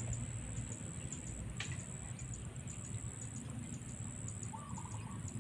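Outdoor ambience: a steady high-pitched whine over a low rumble, with one faint tap about a second and a half in and a short warbling bird call near the end.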